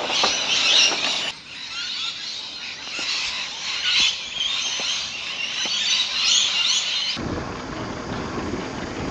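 A large flock of birds squawking and screeching in a shrill, chattering din. About seven seconds in it cuts off abruptly and gives way to a low rumble.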